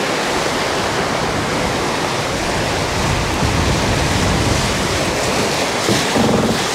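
Wind on the microphone and sea water rushing past the hull of a sailing catamaran under way: a steady, even rush of noise.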